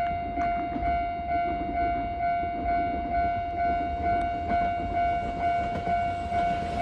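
Japanese level-crossing warning bell starting to ring: an electronic ding on one steady pitch, repeating a little over twice a second. It signals that a train is approaching the crossing.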